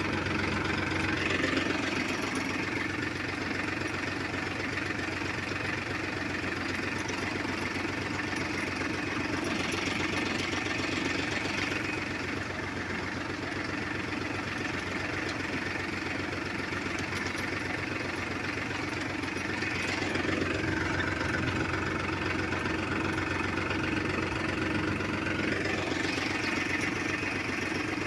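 Farmtrac 42 tractor's diesel engine running steadily while pulling a seed drill, surging slightly a few times.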